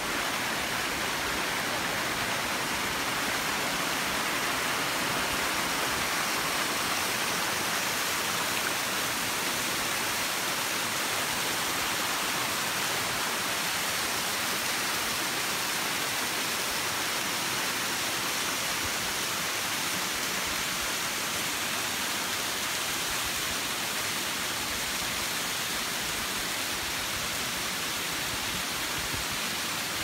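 Waterfall cascading down a rock face: a steady, even rush of falling water.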